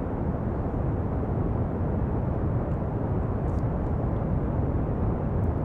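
Steady pink noise: an even, unbroken hiss weighted toward the low end.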